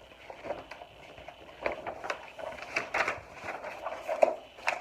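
A large picture book being handled and its page turned: paper rustling with an irregular run of short crinkles and taps.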